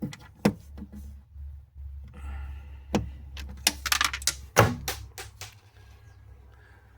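Hand tools and small plastic screw caps being handled: a scattered series of sharp clicks, taps and knocks, bunched most closely around the middle.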